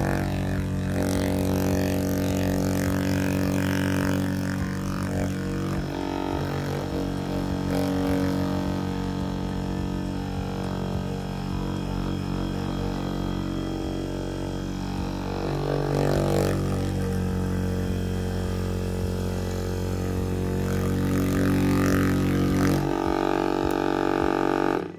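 HOMIEE cordless percussion massage gun running with its head pounding against skin, a loud steady buzzing drone. Its pitch steps up and down a few times, and it cuts off suddenly just before the end.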